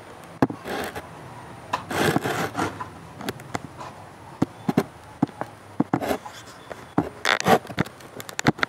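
Knife chopping vegetables on a cutting board: irregular sharp taps, with louder stretches of scraping and rustling about two seconds in and again near the end.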